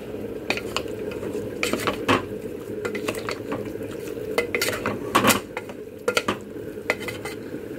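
A spoon stirring and scraping spice-coated mutton pieces in an aluminium pressure cooker pot, with irregular clinks and scrapes of the spoon against the metal sides and rim, loudest about halfway through.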